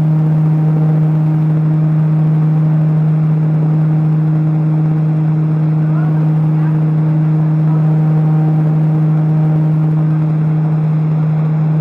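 Large electric fan running at top speed: a steady, loud motor hum over the even rush of air from the blades.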